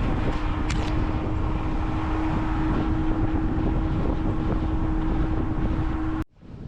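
Jeep engine running with a steady hum, mixed with wind noise on the microphone. The sound cuts off abruptly near the end.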